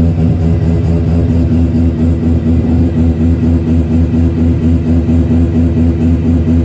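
Bridgeported Mazda 13B twin-rotor rotary engine of an RX-7 running steadily with an even, choppy pulsing note. The car has an exhaust leak.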